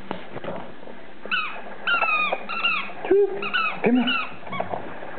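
A dog whining in a quick run of short, high-pitched cries, with a couple of lower cries among them, during play over a ball.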